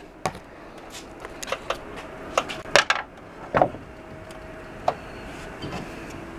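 Scattered light clicks and knocks, irregularly spaced, the loudest a few about three seconds in, over a faint steady tone.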